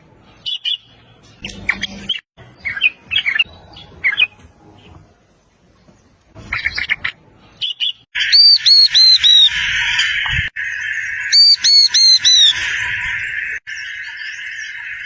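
Birds calling: scattered short squawks and chirps in the first half, then from about 8 s a run of repeated high, arched notes in groups of four or five over a steady hissy chatter.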